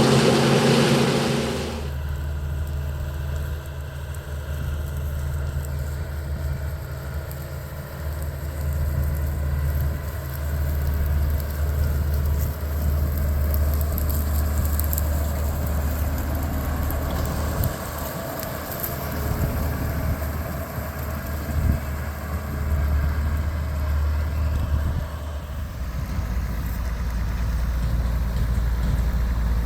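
1982 John Deere 4420 combine's six-cylinder diesel engine running steadily. It is louder and fuller for about the first two seconds, then drops abruptly to a steady low drone, which shifts to a lower, even hum near the end.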